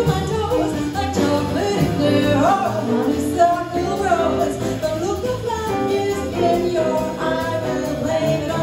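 Live small-group jazz: a woman singing over piano, upright bass and drum kit, with a bright cymbal shimmer behind the band.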